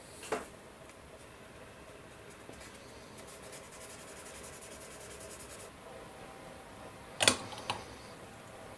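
Small plastic kit parts handled on a cutting mat: a light tap just after the start, a few seconds of fine, rapid scraping, then a sharp knock and a smaller one near the end as a glass bottle with a plastic cap is handled and opened.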